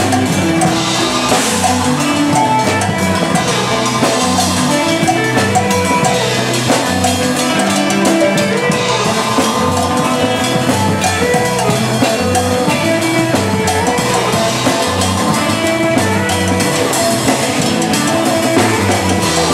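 Loud, unbroken free-improvised rock jam: a drum kit with an extra player bashing cymbals and drums, over electric guitars and a bass guitar moving between low notes.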